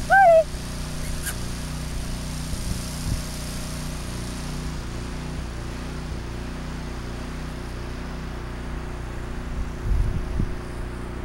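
Steady low hum of an idling pickup truck engine. A short, high-pitched arching call sounds right at the start, and wind buffets the microphone briefly near the end.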